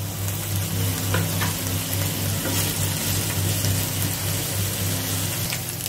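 Diced smoked ham sizzling as it fries in a non-stick frying pan, pushed around now and then with a spatula. A low steady hum runs underneath the sizzle.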